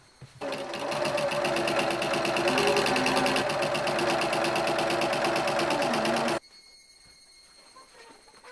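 Janome 780DX straight-stitch sewing machine running fast and steady, sewing a long seam through cotton cloth with a rapid, even stitching rhythm. It starts about half a second in and stops abruptly after about six seconds.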